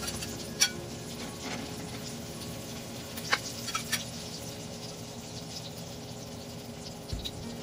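Egg-dipped eggplant shallow-frying in hot oil in a nonstick skillet: a steady sizzle with scattered crackling pops of spattering oil, sharpest a little over half a second in and again around three to four seconds in.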